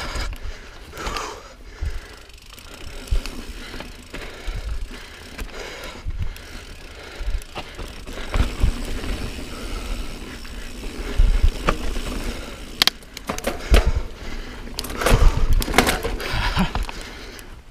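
Niner Jet 9 RDO mountain bike riding dirt singletrack: steady tyre noise on the trail, with scattered knocks and rattles from the bike over bumps. These come thicker in the last few seconds.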